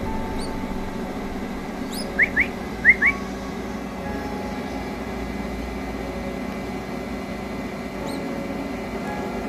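Newly hatched straw-headed bulbul chick cheeping while being hand-fed: four short rising cheeps in two quick pairs about two seconds in, over a steady background hum.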